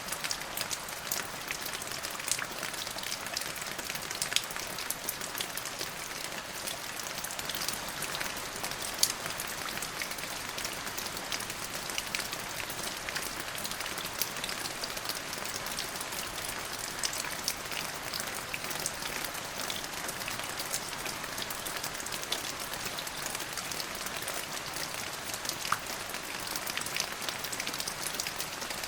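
Steady rain: an even hiss with many sharp, close drop splashes scattered through it.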